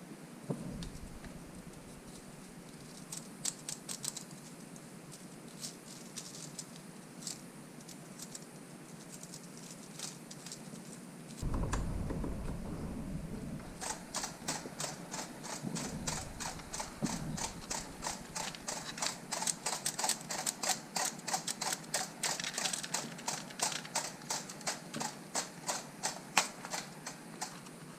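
3D-printed mechanical flip display's plastic flaps clacking over as it cycles, first a few scattered clicks, then a fast, steady run of clacks several a second through the second half. A low rumble comes in briefly around the middle.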